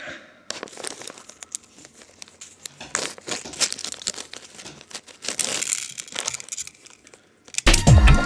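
Crinkling and rustling from something being handled, with many small irregular clicks. Electronic music with a steady beat comes in near the end.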